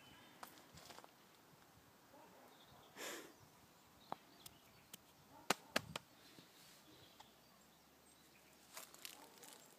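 Mostly quiet: a Scottish terrier nosing about on dry, twig-strewn ground. There is a short rustle about three seconds in, then scattered sharp clicks and crackles of twigs and leaf litter; the loudest two come close together about halfway through.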